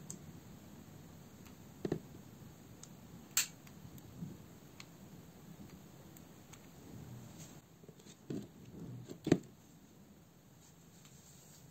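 Quiet handling noise from a hot glue gun and a plastic LED tube holder: a few faint clicks and knocks, the loudest about nine seconds in.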